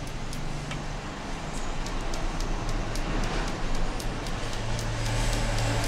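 Steady low rumbling background noise with a wavering hum, and faint ticks that keep recurring every fraction of a second.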